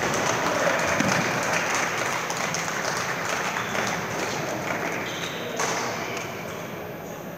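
Busy sports-hall ambience: a dense wash of voices and movement, with sharp pings of shuttlecocks being hit on neighbouring badminton courts.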